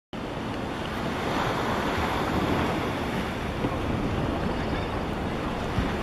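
Wind buffeting the microphone outdoors: a steady rushing noise with a low rumble, with no bird calls standing out.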